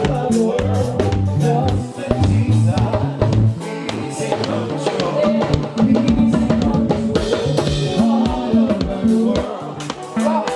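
Live band playing an instrumental passage: drum kit with bass drum and snare hits over bass and other sustained pitched instruments.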